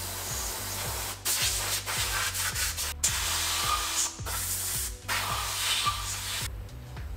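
Compressed-air blow gun hissing in several long blasts with short breaks, blowing out the car's underbody water drains; the air cuts off near the end. Background music with a steady bass line runs underneath.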